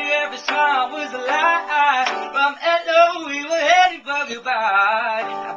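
A man singing over chords played on a Casio portable electronic keyboard, his voice gliding up and down through long held notes.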